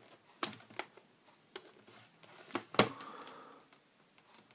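A few sharp clicks and taps of small hard parts being handled, such as multimeter test probes and a battery holder, the loudest a little under three seconds in, with lighter ticks near the end.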